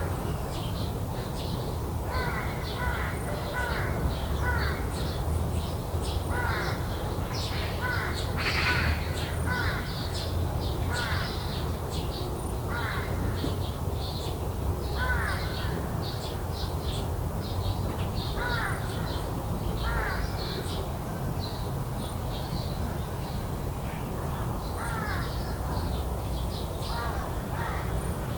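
Crows cawing again and again in short harsh calls, over a steady low rumble.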